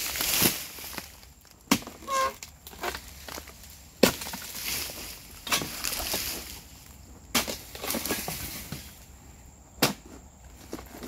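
Dodos (long-poled harvesting chisel) chopping into the frond bases and bunch stalk of an oil palm: about six sharp strikes, irregularly spaced a second or two apart.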